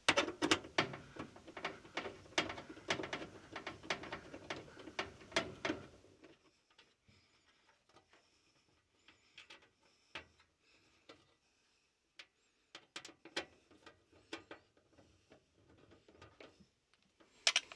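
Clicks and light metallic rattles as a sheet-metal dryer lint trap duct is fitted into place and its bolt-head screws are started with a nut driver. A dense run of clicks lasts about six seconds, then the clicks come scattered, with two sharp ones near the end.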